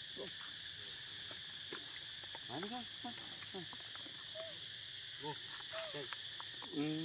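A steady high drone of insects, with several short rise-and-fall calls from monkeys (macaques) about a third of the way in and again near the end.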